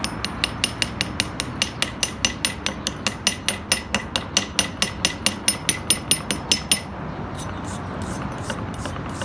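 Metal hammer striking steel rapidly, about four ringing blows a second, stopping about seven seconds in, with only faint scattered ticks after; typical of chipping slag off a fresh stick weld.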